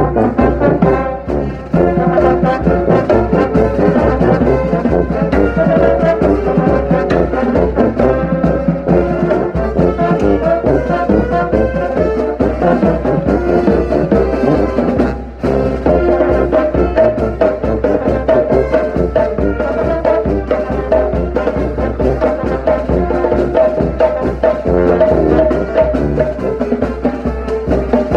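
A brass pep band plays a march-style arrangement, with the tuba loud and close and trombones and trumpets above it. The music breaks off briefly near two seconds in and again about halfway through.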